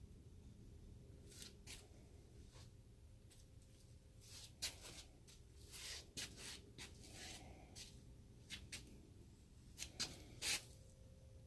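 Faint rustling and scraping of something being handled: a string of short, dry scratches, the loudest two near the end.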